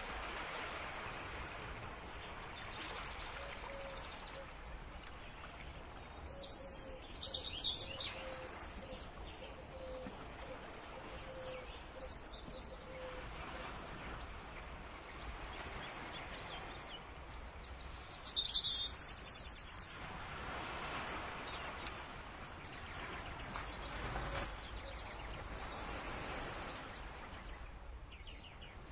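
Bird chirps over a steady background hiss, with two louder flurries of quick high chirps, one about a third of the way in and one about two-thirds in.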